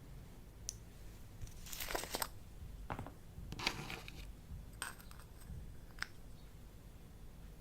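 Slime being worked by hand, giving a scatter of short, crackly clicks and pops, a few in quick succession around the middle.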